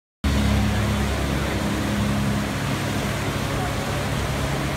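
Steady rush of whitewater from a river-park standing wave, starting abruptly about a quarter second in, with a low steady hum beneath it.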